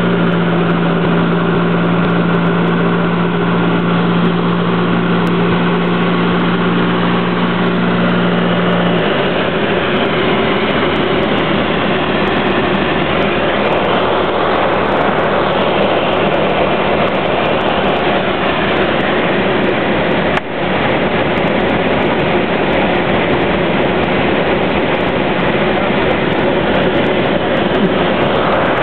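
Long-EZ's pusher engine droning steadily, heard inside the cockpit over loud rushing air. About nine seconds in the engine's steady hum drops away as power comes back for landing, leaving mostly wind noise over the canopy.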